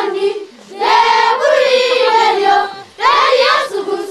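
A group of young voices singing together in short phrases of about a second or two, with brief pauses between them.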